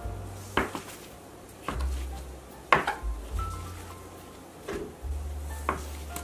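Music: a deep, held bass line with sharp percussive knocks about once a second and short higher notes between them.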